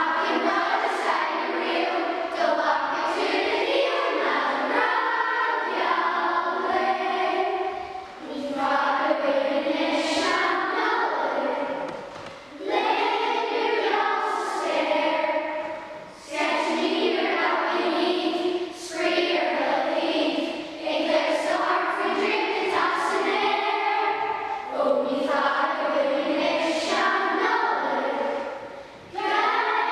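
A class of schoolchildren singing together as a choir, in phrases broken by short pauses for breath.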